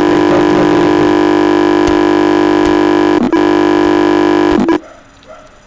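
A loud, steady electronic buzz with many overtones that lasts nearly five seconds, breaks briefly a little past three seconds, then cuts off suddenly.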